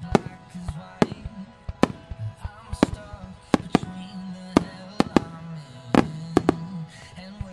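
Aerial firework shells bursting: a dozen or so sharp bangs at irregular spacing, often two or three close together. Music with long held notes plays underneath.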